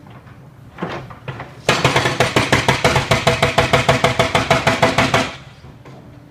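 A construction power tool hammering rapidly, about ten blows a second, for roughly three and a half seconds before stopping, with a single knock a little before it starts.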